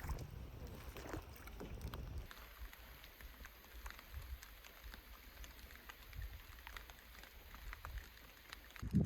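Canoe paddling in wind and rain: light splashes and drips from the paddle with scattered small taps, and wind rumbling on the microphone for the first couple of seconds. A single low thump near the end, likely the paddle knocking the canoe.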